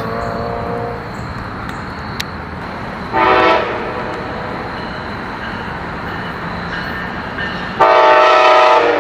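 Train locomotive horn sounding a short blast about three seconds in and a longer blast near the end, over the steady rumble of the passing train.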